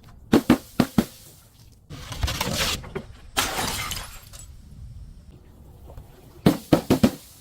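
Glass breaking: a quick run of four sharp cracks, then two spells of shattering and crunching lasting about a second each, and another run of sharp cracks near the end.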